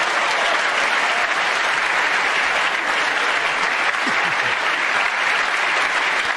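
Snooker audience applauding steadily, a sustained round of clapping for a successful escape from a snooker.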